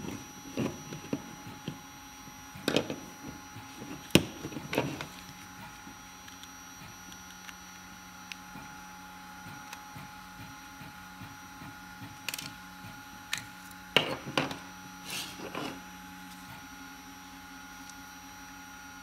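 A Scrib3D P1 3D printing pen being taken apart by hand with a small screwdriver: scattered clicks, taps and knocks of the plastic casing and tool, bunched in the first few seconds and again a little past halfway. A faint steady hum runs underneath.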